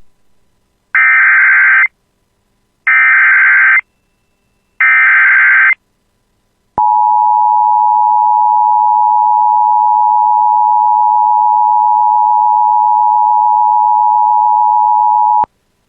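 Emergency Alert System (EAS) alert opening: the SAME digital header sent as three screeching data bursts about a second long each, then the EAS two-tone attention signal held steady for about nine seconds before cutting off sharply. This sequence signals an incoming emergency warning message.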